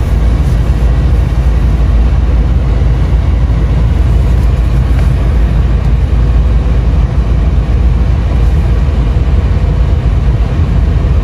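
Motorhome engine running with a steady low rumble, heard from inside the cab as the rig creeps through deep snow to park.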